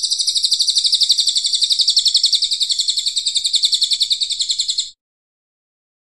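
A cililin coklat songbird sings one long, rapid, high-pitched trill of fast-repeated notes, which cuts off abruptly about five seconds in.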